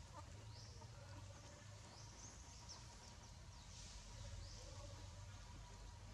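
Faint outdoor ambience: a low steady rumble with soft, brief high chirps several times.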